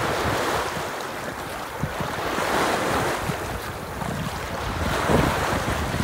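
Lake Superior waves breaking and washing over a flat rock shoreline, surging every few seconds. Wind buffets the microphone with low rumbles.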